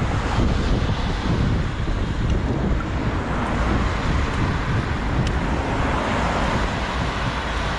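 Steady wind buffeting on the microphone while moving along a street, over a rumble of road and traffic noise.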